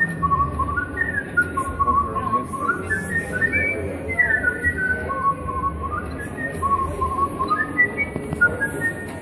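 A whistled melody from the 'whistling oyster' exhibit: one clear tone that sits on a low note, climbs step by step and falls back, repeating the phrase, over a steady low background hum.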